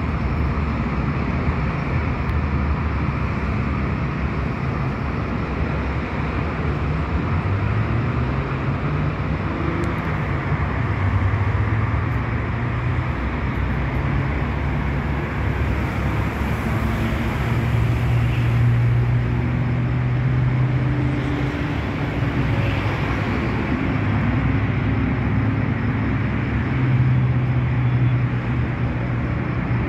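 Steady rumble of motor traffic, with a low engine hum that slowly rises and falls in pitch.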